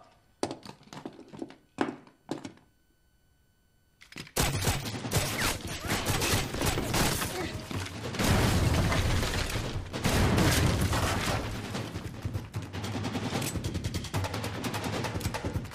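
Gunfire: a few sharp separate bangs, a short lull, then from about four seconds in a heavy, continuous fusillade of rapid shots that keeps going.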